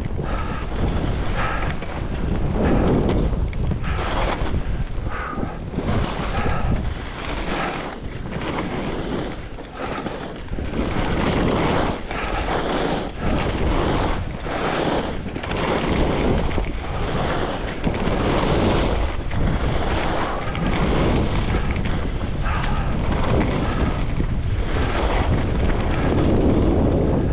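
Wind rushing over the microphone of a skier in motion, with the hiss of skis carving turns on groomed, fresh-snow-covered corduroy, swelling and fading every second or two.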